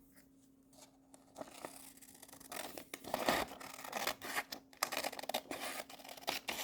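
Scissors cutting through a paper worksheet: a run of snips that starts about a second and a half in.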